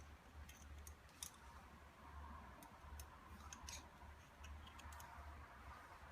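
Faint, scattered small clicks and taps of a Ruger P97 pistol's parts being handled during disassembly and cleaning, over a low hum.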